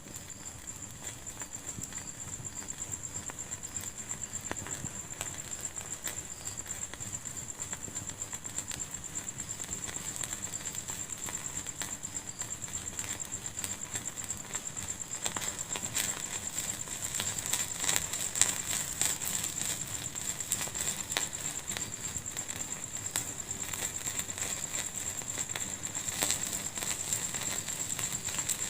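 Wood fire burning in a fireplace, crackling with many small snaps and pops that grow busier past the middle, over a steady thin high-pitched hiss.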